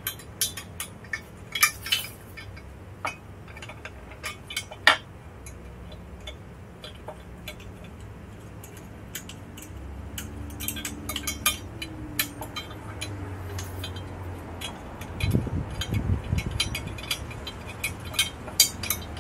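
Scattered light metallic clinks and taps of a steel motorcycle crash bar, its bolts and washers being handled and fitted, loudest in the first few seconds. A low rumble rises briefly about fifteen seconds in.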